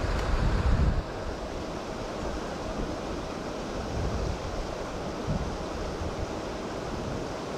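Steady rushing of water churned by the pond's aerators, with wind buffeting the microphone, heaviest in the first second.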